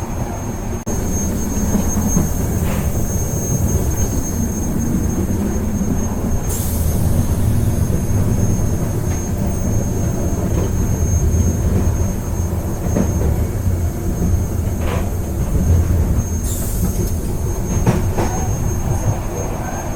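Moving train heard from aboard: a steady low rumble with a few scattered clacks and knocks, a faint steady high whine, and two brief hissing swells, one about six seconds in and one near the end.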